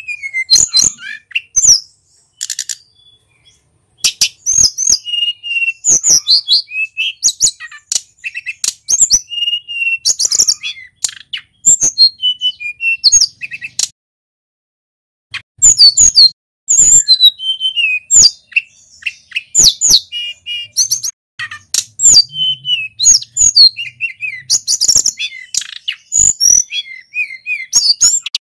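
Male sulingan gunung songbird singing a rapid, varied song of high chirps and quick whistled glides, in long phrases broken by brief pauses about two seconds in and about halfway through.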